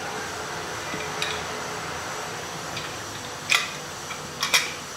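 A few sharp metal clicks and clinks, with two louder ones in the second half, from a wrench working a fitting on an AC manifold gauge as it is tightened down. A steady faint hiss runs underneath.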